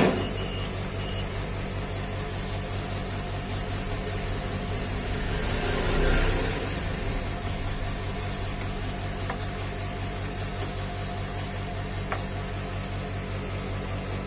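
Steady low hum with a faint high whine, swelling briefly about six seconds in.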